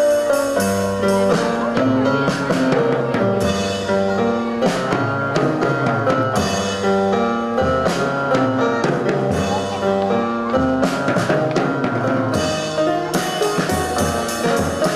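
Music: a band track with a drum kit keeping a steady beat under a moving bass line and sustained pitched instruments.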